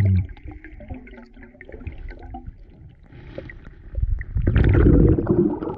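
Muffled underwater sound of a diver working a gravel riverbed: scattered small clicks and knocks with a faint muffled hum. About four seconds in, a loud low rush of churning water and bubbles starts.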